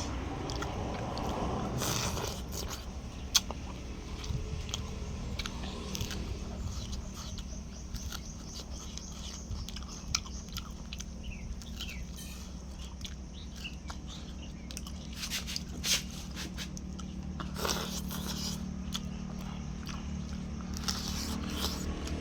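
A person chewing and biting into chicken close to the microphone, with many small crunches and clicks, over a steady low hum.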